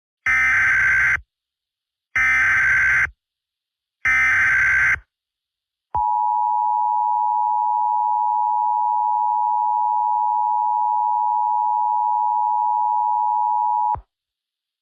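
Emergency Alert System header: three short screeching data bursts, each about a second long, followed by the steady two-tone attention signal held for about eight seconds, which cuts off abruptly. It marks the start of a new alert, here a severe thunderstorm warning.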